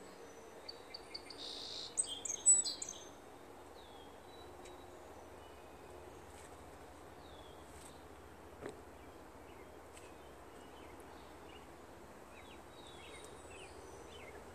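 Quiet outdoor ambience with small birds chirping: a louder flurry of high chirps about two seconds in, then scattered short falling chirps that grow busier near the end, and one faint click a little past halfway.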